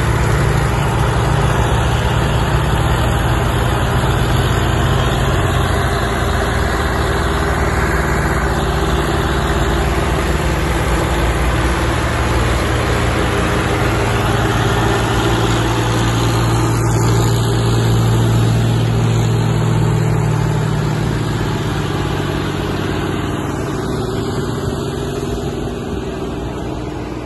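Tractor diesel engines running steadily as tractors pull a loaded grain trolley along a muddy field track. The engines get louder as they pass close, about two-thirds of the way in, then fade as they move off.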